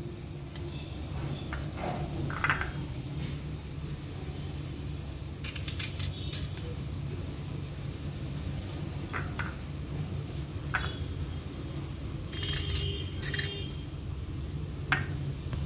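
Knife slicing through a raw green mango, with scattered short clicks and scrapes as the blade cuts and the slices drop into a ceramic bowl, over a steady low hum.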